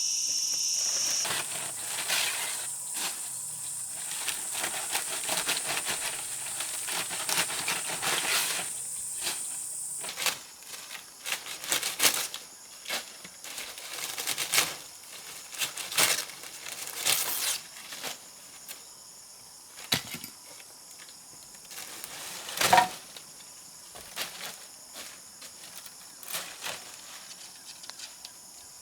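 Insects shrilling steadily in a high buzz that stops about ten seconds in, over intermittent rustling, crinkling and sharp knocks and snaps from handling wood and plant material.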